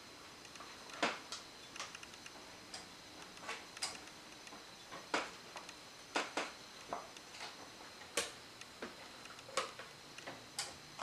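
Utensil scraping and tapping against a plastic tub as soft mascarpone cheese is scooped out into a mixing bowl: an irregular string of light clicks and taps.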